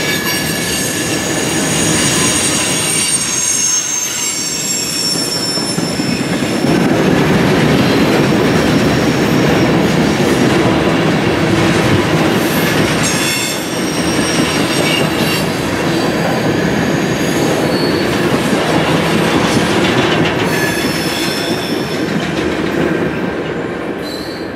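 Freight train of tank cars rolling past close by: a steady rumble of steel wheels on rail, with high wheel squeal coming and going. The sound fades away near the end as the last car passes.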